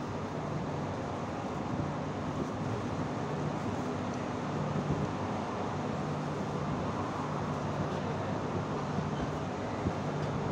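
Steady city traffic noise with a low, even hum underneath.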